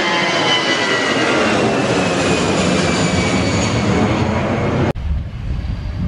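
Twin-engine jet airliner passing low overhead in a climb: a loud jet roar with a whine that slowly falls in pitch as it goes by. The sound cuts off abruptly near the end, leaving only a quieter low rumble.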